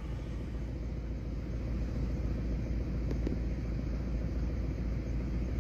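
Distant off-road vehicle engine rumbling as it drives up a dusty dirt track, a steady low rumble that grows slightly louder.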